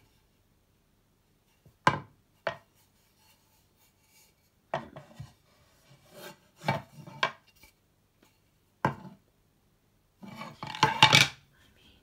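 Wooden cutting board being handled and set down on a kitchen countertop: scattered sharp knocks of wood on the counter, with the loudest cluster of knocking and scraping about ten to eleven seconds in, as it is laid flat.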